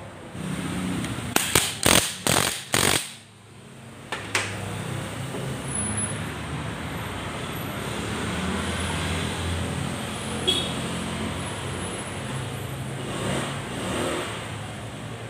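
A quick run of four or five sharp metal clicks and knocks as small motorcycle engine parts are handled and fitted on the clutch side, then a steady low rumble of traffic.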